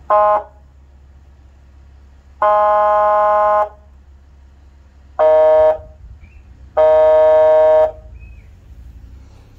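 SpeedTech Lights PA100 100-watt electronic air horn sounding through its under-hood speaker in four loud blasts: a short one, a long one, a short one and a long one. The first two are in one tone and the last two in another, its horn A and horn B settings in turn.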